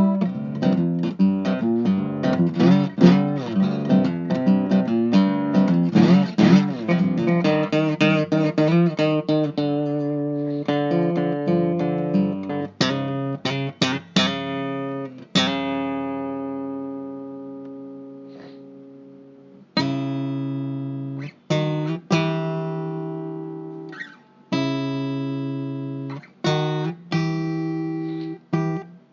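Solo guitar playing: quick picked runs with bent and wavering notes at first, then slower single chords that ring out, one left to die away near the middle, with short pauses between them.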